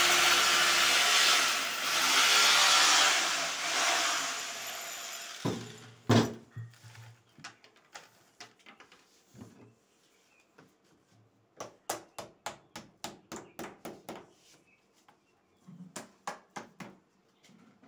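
A power tool runs steadily for about five seconds and then stops. A hammer then knocks nails in to fix a PVC wall panel: one sharp knock, then quick runs of light blows, about three a second.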